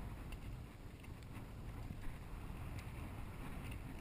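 Wind buffeting the microphone, a steady low rumble, with a few faint clicks scattered through it.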